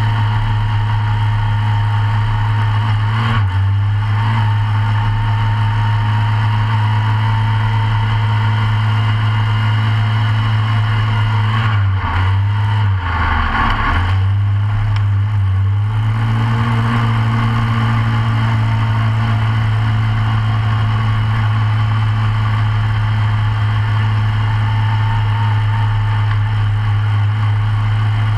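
Short course off-road racing kart's engine running hard from on board, holding a steady pitch. About halfway through, the pitch dips and wavers for a few seconds before settling back.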